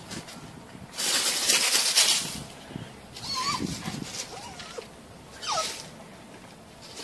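A cat hissing at a dog, a loud hiss about a second in, then two short wavering yowls, the second falling in pitch.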